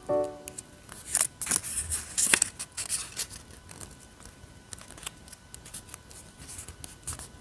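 Thin origami paper being folded and creased by hand: crisp rustling and crackling, busiest in the first few seconds, then fainter rubbing as the folds are pressed flat.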